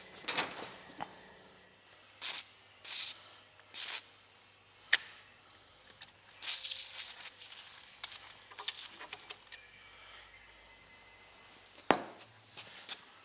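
New rubber window seal being worked into a window frame by hand: several short hissing rubs, a longer one about halfway through, and a few sharp clicks, the loudest near the end.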